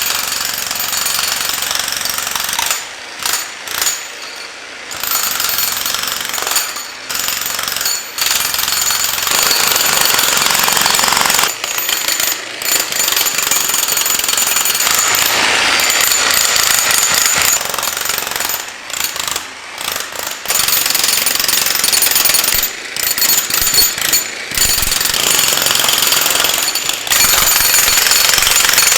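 Harbor Freight 35-pound electric jackhammer breaking up concrete, hammering in long runs broken by brief pauses every few seconds.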